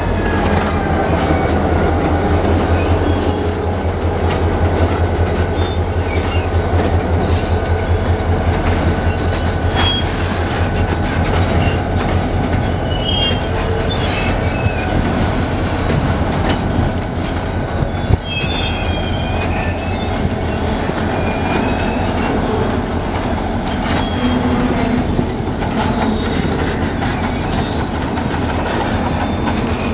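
Empty steel ore wagons rolling slowly past, with a steady low rumble and repeated thin, high-pitched squeals from the wheels and brakes as the air-braked train slows to a stop.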